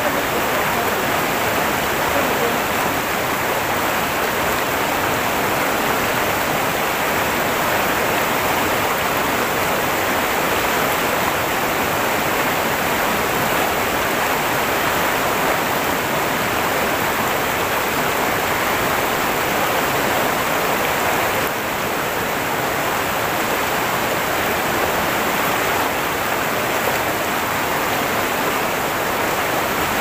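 Fast, shallow mountain stream rushing over rocks and boulders as white-water rapids, a steady, unbroken sound of water.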